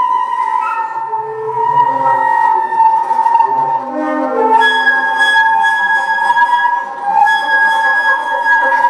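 Alto flute playing long, held notes over an electronic accompaniment, with a higher held tone joining about halfway through and lower tones shifting underneath.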